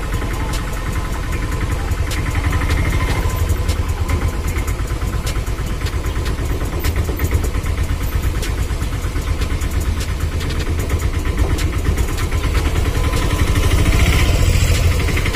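A vehicle engine running with a steady low rumble, with frequent rattling clicks throughout.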